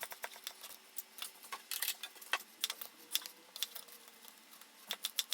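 Kitchen knife chopping vegetables on a cutting board: irregular light taps, several a second, busier at the start and again about five seconds in.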